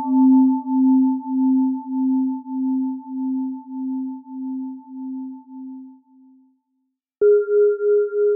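A low bell-like tone, struck once, rings with a slow wavering pulse and fades out over about six seconds. Near the end a higher bell-like tone is struck and rings on with a faster pulse.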